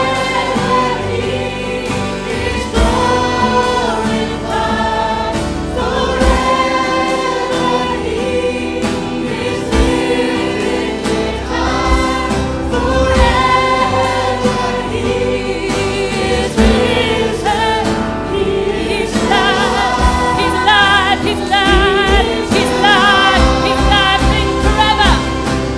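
A worship song played by a band with drums, with voices singing. Some wavering held notes come near the end.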